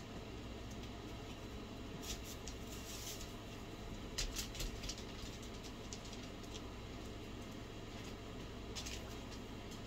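Steady low room hum with a few brief, soft scratchy clicks about two, four and nine seconds in: small handling sounds close to the microphone during mascara application.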